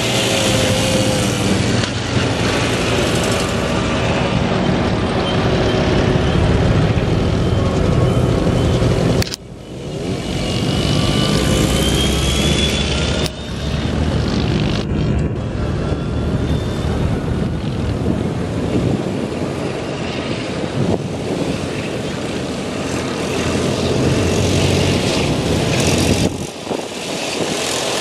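Engines of vintage cars, tractors and trucks running as they drive slowly past over grass, a steady low hum that changes abruptly a few times as one vehicle gives way to the next.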